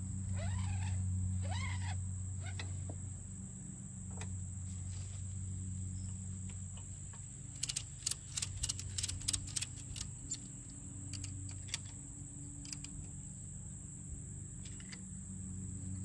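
Ratchet strap being cranked tight around a mini skid steer's track tensioner, to compress it and push the grease out. A quick run of sharp ratchet clicks comes about eight seconds in, then a few scattered clicks, over a steady high drone and a low hum.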